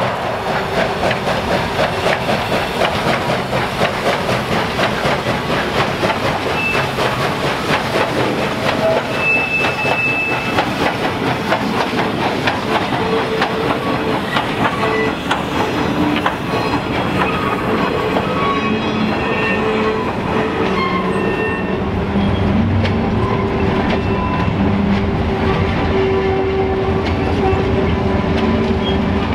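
Baldwin 2-6-6-2 Mallet steam locomotive 1309 working past at the start, then a string of freight hopper cars rolling by with steady clickety-clack of wheels over rail joints and brief wheel squeals on the curve. Near the end the low engine rumble of a diesel locomotive at the rear of the train comes in.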